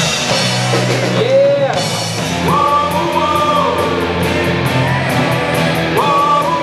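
Live rock band playing an instrumental passage on electric guitars, bass and drum kit, with a melody line sliding up and down in pitch over a steady bass part and a regular cymbal tick.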